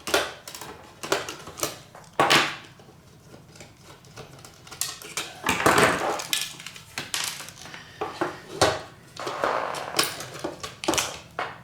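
A metal hand tool working the nuts on a bench power supply's terminal posts: irregular metallic clicks, clinks and short scrapes.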